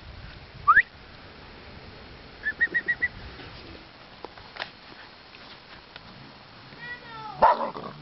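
Dogs at play yelping: a short rising squeal about a second in, and a loud falling whine near the end as two of them wrestle.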